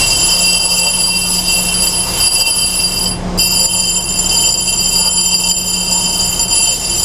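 Side of a 60-grit, J-hardness grinding wheel on a Reid surface grinder being dressed with a hand-held dressing tool: a steady high-pitched screech of several tones over the spindle's hum, breaking off briefly about three seconds in. The wheel's side is being relieved so that only its bottom point will cut.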